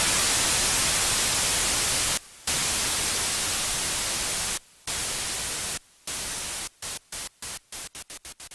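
Steady hiss of white-noise static, like a detuned TV, cutting out briefly about two seconds in and again about four and a half seconds in, then breaking into faster and faster stutters that fade away near the end.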